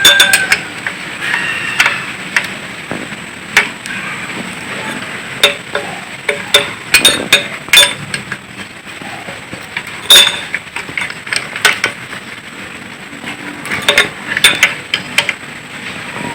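Irregular metallic clinks and knocks of hand tools on engine parts as a small truck engine is taken apart: a dozen or so scattered strikes, some ringing briefly, the loudest about ten seconds in.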